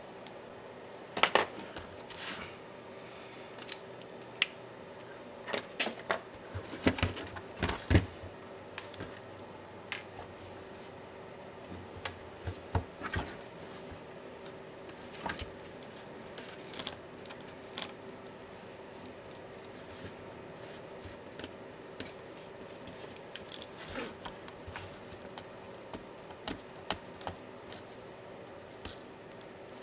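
Hands and small tools taking a laptop apart: irregular clicks, taps and short scrapes of plastic and metal parts being pried, lifted and set down, loudest about a second in and again around six to eight seconds in, over a faint steady hum.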